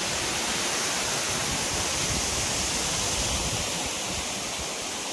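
Water cascading over a concrete spillway: a steady rushing hiss, easing slightly near the end.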